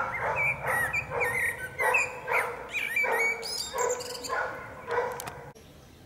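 A dog barking over and over, about two barks a second, cutting off suddenly near the end.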